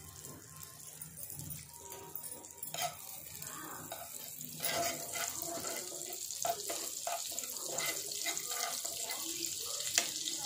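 Butter and oil sizzling as they heat in a non-stick kadai, with small spattering crackles; the sizzle grows louder about halfway through.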